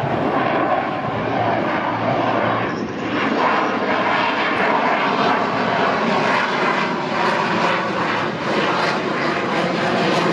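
F/A-18 Hornet-type twin-engine fighter jet passing overhead in a display, its jet engines producing a loud, steady rushing noise that dips briefly about three seconds in.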